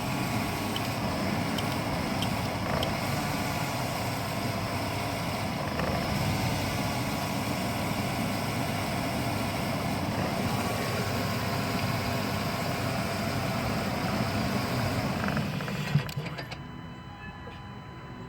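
A 1998 Chevrolet Astro van's 4.3-litre V6 running steadily at idle. A sharp click comes about sixteen seconds in, and after it the sound drops to a lower level.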